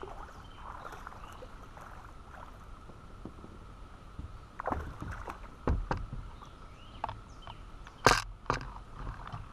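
A hooked bass splashes at the surface and knocks against a plastic kayak as it is fought and brought alongside. A few sharp splashes and knocks come from about halfway through, and the loudest comes about eight seconds in, as the fish is reached for at the side of the hull.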